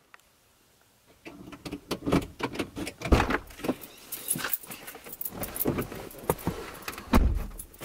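Car keys jangling and clothing rustling as someone climbs into a car's driver's seat, with two dull thumps, about three seconds in and near the end.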